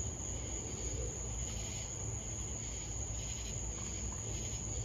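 Crickets chirping: a steady high trill with fainter pulsing chirps, over a low steady rumble.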